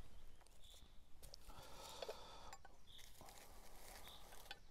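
Near silence: faint rustling and a few small clicks from knives being handled, with short high chirps repeating every second or so.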